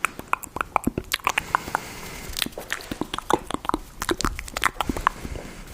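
Close-miked ASMR sounds: crisp clicks and taps in quick, irregular succession, several a second.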